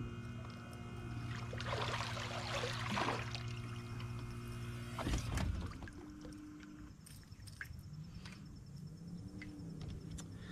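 Electric trolling motor humming steadily, then cutting off with a knock about five seconds in. A short burst of splashing water comes around two to three seconds in as a small bass is reeled to the boat.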